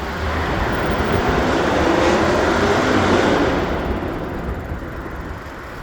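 A car speeding past on the street, its tyre and engine noise swelling to a peak two to three seconds in and then fading away.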